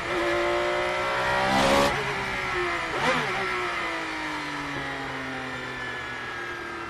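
Ferrari 333SP's 4.0-litre naturally aspirated V12, heard onboard. The revs shoot up briefly about a second and a half in and again about three seconds in, like throttle blips, then the pitch falls steadily as the car slows.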